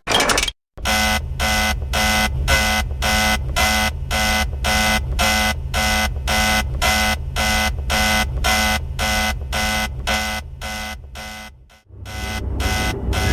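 Electronic alarm beeping in even, rapid pulses, about three a second, that stop suddenly near the end as a different sound begins.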